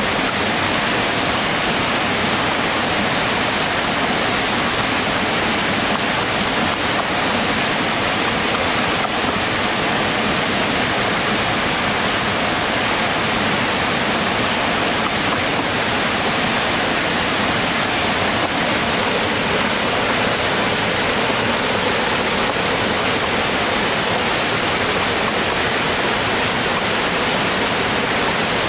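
Steady rush of a small waterfall cascading over rocks into a stream.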